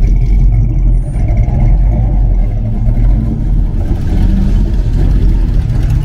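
A car engine running steadily close by, a low rumble.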